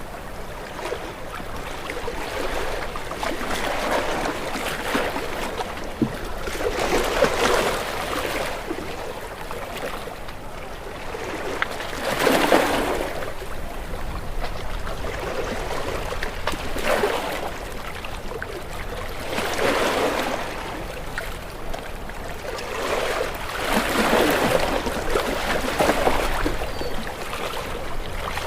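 Ocean waves breaking against rocks, a splashing surge every four to five seconds over a constant wash of water.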